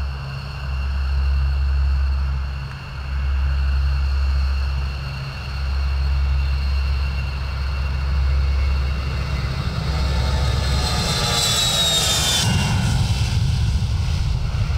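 Military aircraft engines during takeoff: a low rumble with a high turbine whine that falls in pitch as the aircraft passes, cutting off abruptly about two-thirds of the way through.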